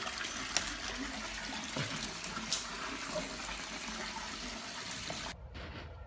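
Steady rush of running water with a few light clicks; it cuts off abruptly near the end.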